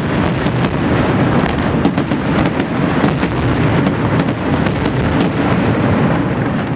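Fireworks display going off in a dense barrage: many rapid, overlapping bangs and crackles over a continuous rumble.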